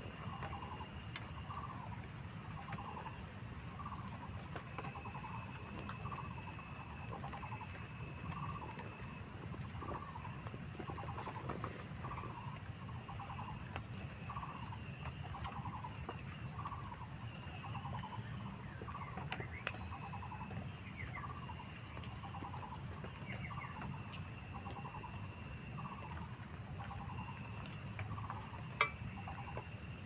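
Steady high-pitched drone of an insect chorus, with a short call repeating about once a second beneath it and a few faint clicks and snaps, a sharper one near the end.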